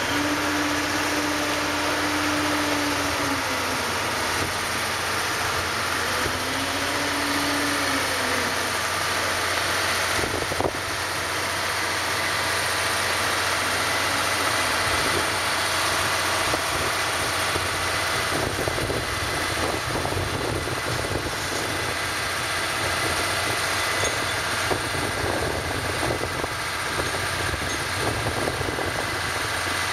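Steady engine and machinery noise of a small car ferry idling at the dock, with a tone that rises and falls twice in the first eight seconds.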